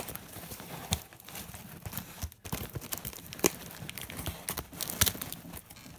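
Plastic packing tape being peeled off a cardboard box, crinkling and crackling, with a few sharp clicks along the way.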